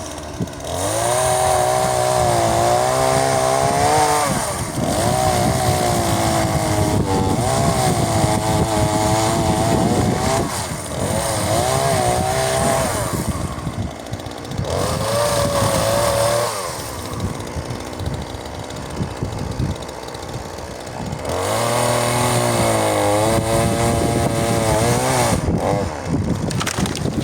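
Chinese-made petrol chainsaw sawing dead standing trees, its two-stroke engine repeatedly revving high under the cut and dropping back to lower revs between cuts.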